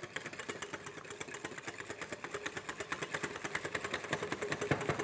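Eggs and stevia being beaten in a bowl, the whisk clicking rapidly and evenly against the bowl.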